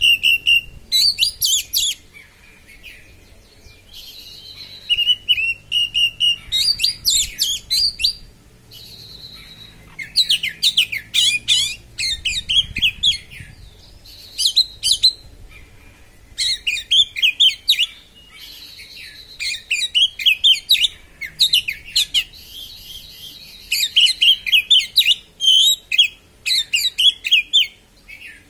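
Oriental magpie-robin (kacer) singing loudly in the fast, sharp 'konslet' style: bursts of rapid, chattering high notes every one to three seconds, with a few drawn-out whistled notes between them.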